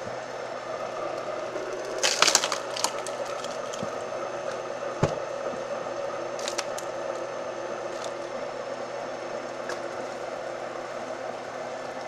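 Engine-driven homemade firewood processor running with a steady hum, with wood cracking and splintering as it is split. There is a burst of cracks about two seconds in, then a few single knocks and cracks.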